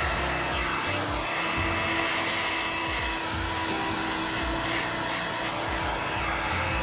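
Electric heat gun running steadily, blowing hot air over a scooter's plastic footboard to restore the plastic.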